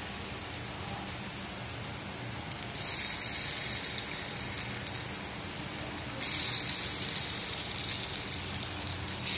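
Ponganalu (kuzhi paniyaram) batter sizzling in hot oil as it is spooned into the cups of a paniyaram pan. The sizzle gets louder in two steps, about three and six seconds in, as more cups are filled.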